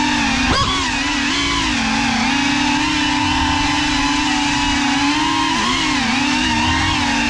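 GEPRC Cinelog 35 cinewhoop's brushless motors and propellers whining steadily, the pitch wavering up and down with throttle changes, with a brief sharp jump in pitch about half a second in.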